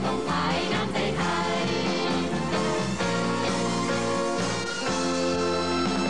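Mixed choir singing a Thai song in held chords over band accompaniment.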